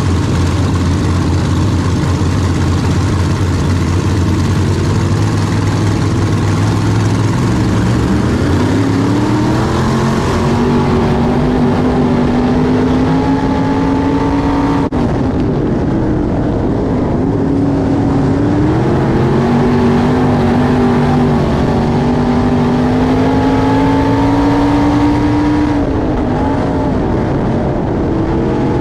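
Limited modified's V8 engine heard from inside the car: low and steady at pace speed under caution, then revving up hard about eight seconds in on the restart. Its pitch then rises along the straights and drops briefly twice as the throttle is lifted for the turns.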